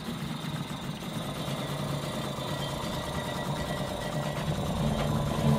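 Small outboard motor on a wooden river longboat, running steadily at low speed with an even, rapid beat.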